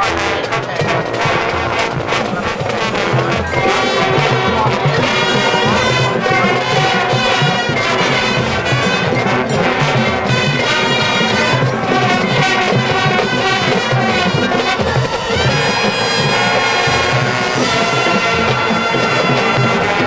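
Marching band playing at full volume: brass chords with trumpets and trombones to the fore over the drum line's steady beat, with long held notes in the later part.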